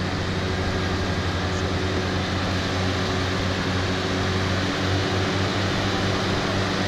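Daihatsu Feroza winching itself forward out of mud: a steady mechanical drone from the vehicle's running engine and winch.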